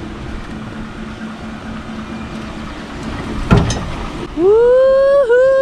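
Lifted Ford F-150's 5.0 V8 running slowly as the truck comes down a dirt slope, with one thump about three and a half seconds in. Near the end a person shouts a long, loud "woo-hoo" that rises and then holds.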